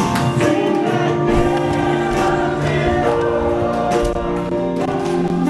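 Worship music with a group of voices singing together over sustained instrumental chords.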